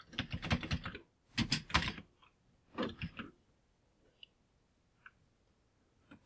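Keys being typed on a Commodore 64 keyboard: three quick runs of keystrokes in the first three seconds, then a couple of faint single clicks.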